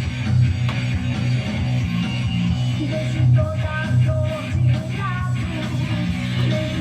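Hard rock track playing, with distorted electric guitars over a steady bass line and a melodic guitar lead coming in about three seconds in.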